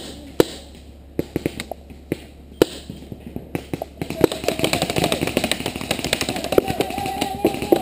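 Paintball markers firing: sharp, irregular pops, some single and some in quick runs. From about halfway through, distant voices call out over them.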